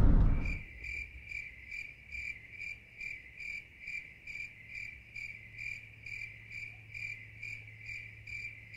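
A cricket chirping steadily and evenly, about three chirps a second, over a faint low hum. The car-cabin sound fades out in the first half second.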